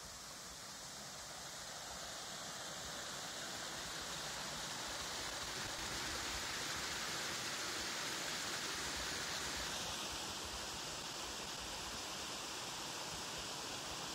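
Steady rush of running water, growing louder over the first several seconds and easing off a little about ten seconds in.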